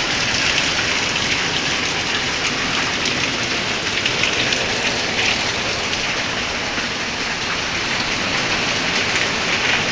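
Heavy rain pouring down steadily, a dense hiss of countless drops striking surfaces.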